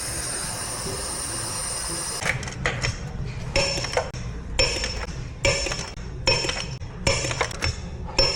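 A steady high hiss for about two seconds, then a hammer striking metal roughly once a second, each blow with a short metallic ring.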